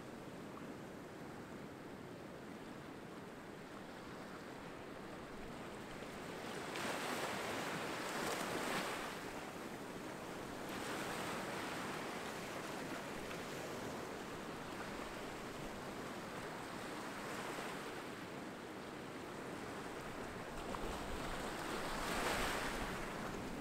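Small waves breaking among rocks and washing up a sandy beach: a steady wash of surf that swells every few seconds as each wave comes in, loudest near the end.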